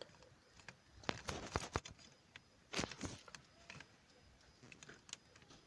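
Faint plastic clicks and knocks as a replacement turn-signal switch is handled and slid into its mounting clip on a car's steering column, with small clusters of clicks about one to two seconds in and again about three seconds in.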